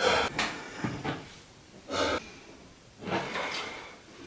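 A man breathing hard through his open mouth, exhausted after exercise, with heavy breaths about once a second.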